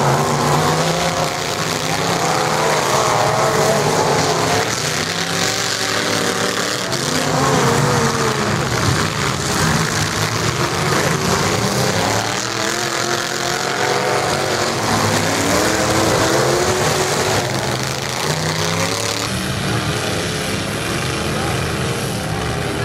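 Demolition derby trucks' engines running and revving, the pitch rising and falling again and again.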